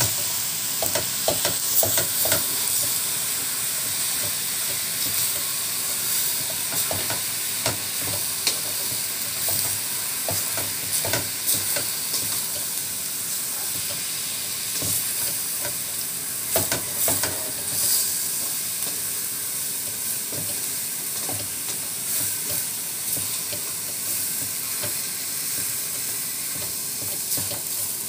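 Ground pork sizzling as it fries in a stainless steel pot, while it is browned. A wooden spatula stirs it, scraping and knocking against the pot now and then in short clicks.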